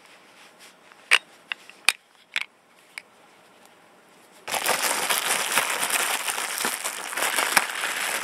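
A few light, sharp clicks, then from about four and a half seconds in a loud, dense crinkling and crackling rustle that goes on without a break.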